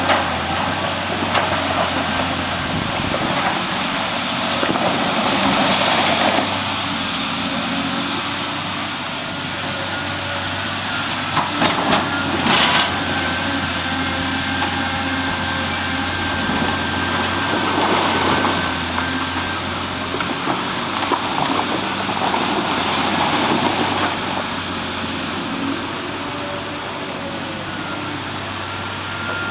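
A large engine runs steadily with a low hum and a faint steady whine, with louder noisy surges every several seconds, typical of heavy equipment at work.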